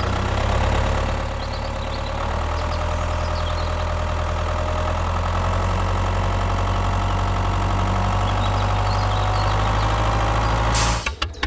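A small engine running steadily at idle, with a low hum and a faint whine that rises slowly in the second half. It cuts off suddenly near the end.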